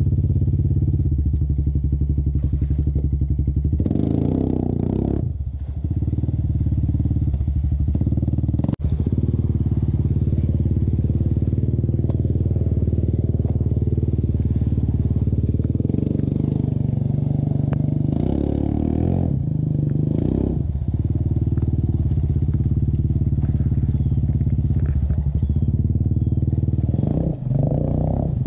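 Quad (ATV) engine running through its aftermarket exhaust pipe while it bogs through deep water, revving up in short bursts a few times and settling back between them.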